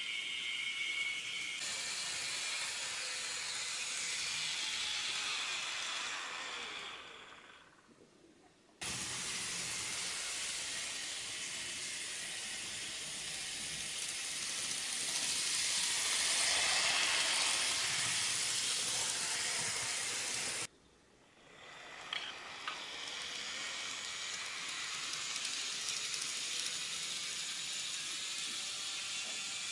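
N-gauge model electric trains running on the layout track: a steady whirring hiss of the small motors and wheels on rail, growing louder in the middle as a train comes close, with a Keihan 2400 series model pulling away near the end. The sound dips out and cuts back in abruptly twice.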